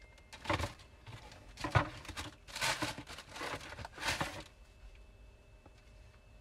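Tissue paper rustling and crinkling in a cardboard gift box as a hand digs through it, in several short bursts, dying down near the end.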